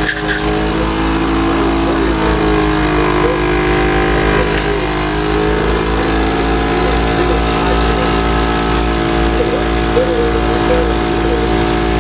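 Electric power percussor used for chest physiotherapy buzzing steadily as it vibrates.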